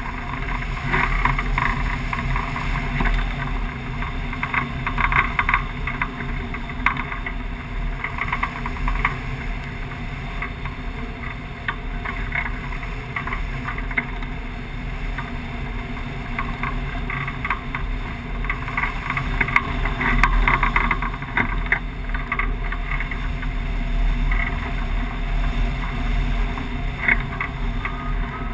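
Airflow buffeting a wing-mounted camera's microphone as a hang glider flies: a continuous low rumble with irregular gusty surges.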